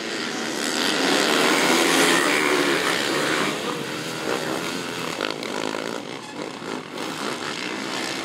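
Several motocross dirt bikes racing past, their engines revving and changing pitch as the throttles open and close. The sound builds over the first couple of seconds, then rises and falls as bikes go by.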